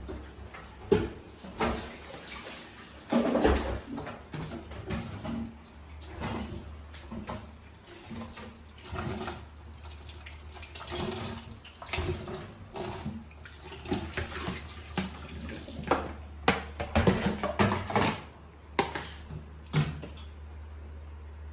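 Irregular knocks, rattles and splashy handling noises over a steady low hum, with a run of sharper knocks near the end.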